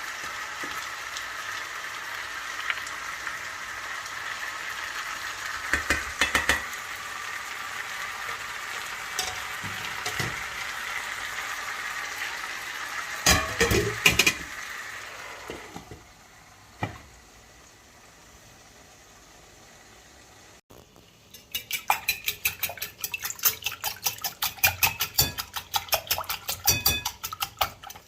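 Food sizzling in a pot, with a utensil knocking against the pot a few times. After a quieter pause near the middle, a quick run of sharp utensil clicks and scrapes, several a second, as the pot is stirred.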